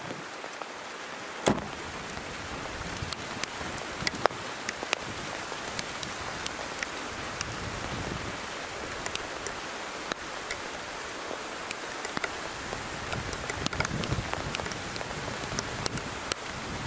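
Light spring rain falling steadily, with many sharp ticks of single drops striking close by.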